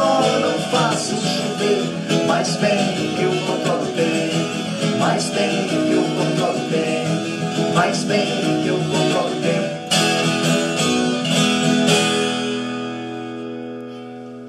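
Several acoustic guitars, including a twelve-string, strumming and picking the instrumental close of a moda de viola song. Near the end a final chord rings out and fades away.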